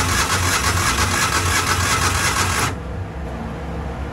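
Electric starter cranking the cold gasoline engine of a Miller Bobcat 250 welder-generator, turning over rhythmically without catching, then stopping suddenly about two and a half seconds in. The engine won't fire because fuel isn't reaching it, which the owner suspects is ice in the bottom of the tank.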